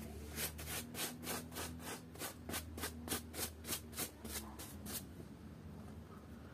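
Small hand brush scrubbing dried, cracked mud off a stuffed toy, in quick even strokes about four a second. The strokes stop about five seconds in.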